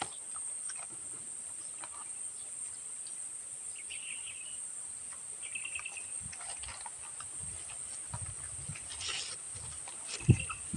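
Quiet eating sounds: soft chewing and small mouth clicks, a few at a time, over a steady high-pitched insect drone with a few faint chirps.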